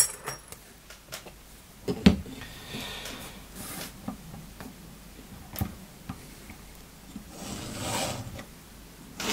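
Leatherworking tools and a leather strip handled on a wooden work board: a few light knocks, the loudest about two seconds in, and soft rubbing sounds. Near the end comes a short scrape as a small marking tool is drawn along the edge of the leather strap.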